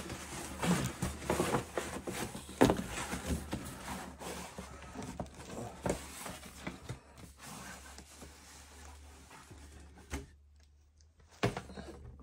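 Cardboard box and its packaging being handled and opened: scattered rustles and knocks, the sharpest about two and a half seconds in. The sounds thin out and there is a brief near silence late on.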